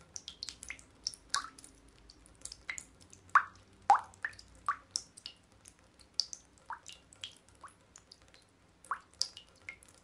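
Water dripping from a leak into water: irregular drops, a few each second, each a short plink at a different pitch. The loudest two come a little over three and almost four seconds in.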